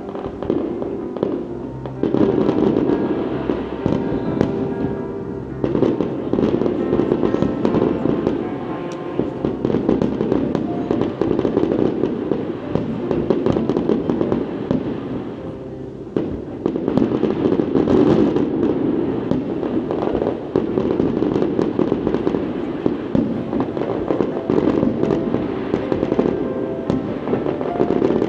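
Aerial fireworks display: a steady run of shell bursts, bangs and crackling, with brief lulls twice, over music playing underneath.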